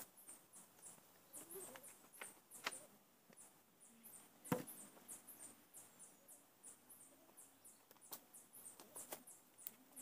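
Quiet forest background with rapid, short, high-pitched chirping from wildlife, and a single knock about four and a half seconds in. The chainsaw is switched off.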